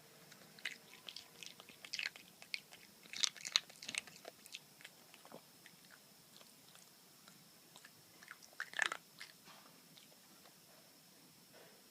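A puppy chewing and biting: irregular small crunching clicks for the first few seconds, then another brief flurry near the end.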